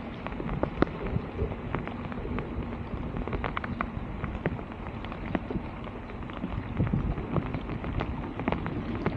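Clearing a clogged street drain: irregular knocks and crackles of debris being handled, over a steady rushing noise.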